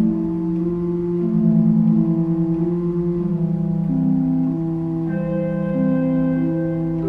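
Background music of slow, sustained organ chords, the notes held and changing about once a second.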